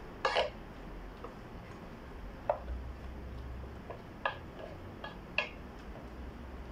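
Wooden spoon stirring a thick broccoli soup in a pot, knocking and scraping against the pot's side now and then: a few irregular sharp knocks over a low steady background.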